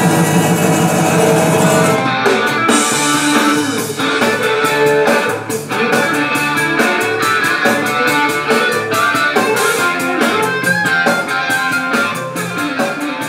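Rock music with electric guitar and drums played from a phone over Bluetooth through newly installed Kicker car speakers. A steady low hum fills about the first two seconds, then the music comes in with a regular beat.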